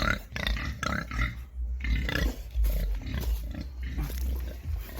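Pigs grunting in their pen at feeding time, irregular short calls.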